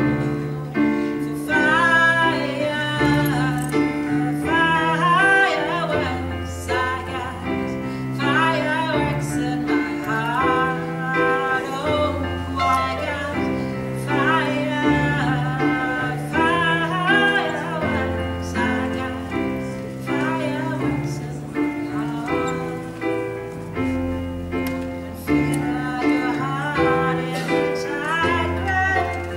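A woman sings a song live into a microphone with vibrato on held notes, accompanied by sustained chords and bass notes on a keyboard.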